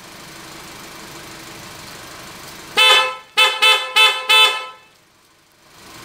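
Aftermarket PIAA snail (trumpet-spiral) horn pair, low and high tone, sounded in four blasts: one of about half a second, then three short quick toots.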